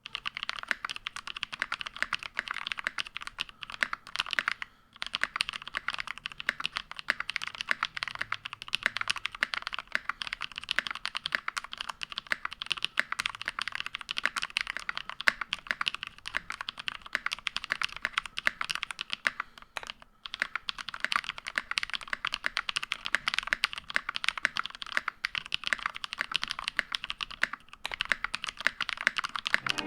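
Continuous typing on a Tofu65 mechanical keyboard with tactile Holy Panda switches lubed with 205g0, mounted on an aluminium plate: a dense stream of key clacks, with brief pauses about five seconds in and again around twenty seconds.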